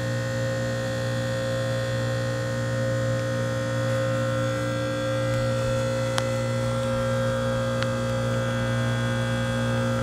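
1996 American Standard heat pump outdoor unit running during its defrost cycle, giving a steady electrical hum with a couple of faint ticks.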